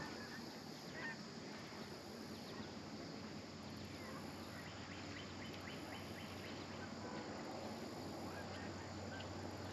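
Faint background of scattered short bird chirps and calls over a steady high hiss.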